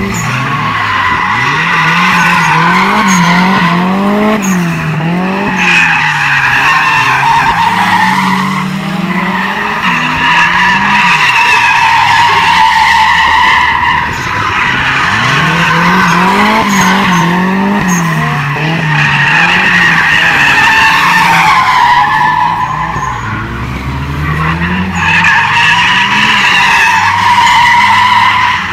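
Car drifting in circles: tyres squealing continuously while the engine revs rise and fall every second or two as the throttle is worked. The squeal eases briefly twice before picking up again.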